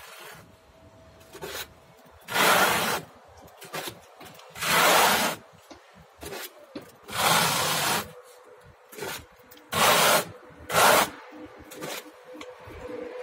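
A plastering trowel scraping across a wall, spreading and rubbing in grainy 1.5 mm silicate-silicone stone-texture plaster: about five loud sweeping strokes a second or two apart, with fainter scrapes between.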